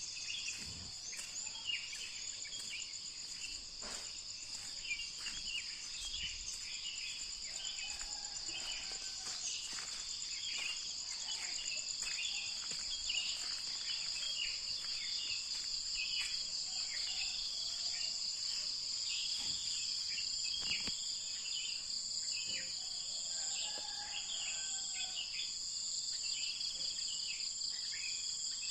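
Steady, high-pitched insect chorus, a fast trilling that runs on without pause. Many short chirps sound beneath it.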